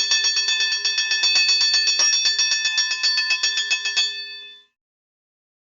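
A bell struck rapidly and evenly, about eight strokes a second, stopping abruptly about four seconds in and ringing out briefly.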